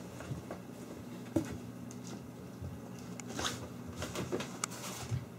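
Kitten's claws scrabbling and scratching as it climbs a hanging curtain, in scattered short scratches and light knocks, over a low steady hum.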